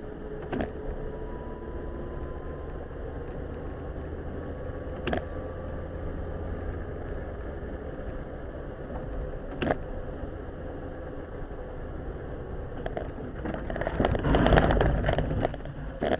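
Car driving on a wet road, heard from inside the cabin: a steady engine and tyre hum with a faint steady whine, and a sharp click every four to five seconds. A louder rush of noise comes near the end.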